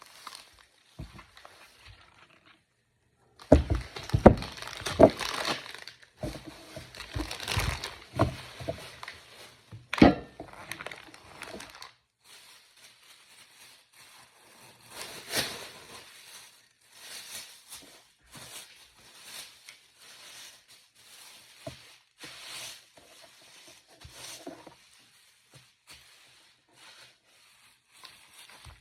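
Groceries and their plastic packaging being handled: rustling and crinkling, with irregular knocks as items are picked up and set down. The handling is busiest in the first third, with a sharp knock about ten seconds in, and then eases to occasional quieter rustles and taps.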